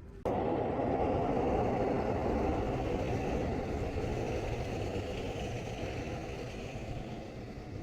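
Steady vehicle noise, engine and tyres, that begins abruptly just after the start and slowly grows fainter.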